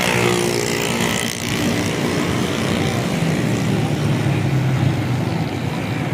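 A car's engine running steadily, its pitch shifting briefly about a second in.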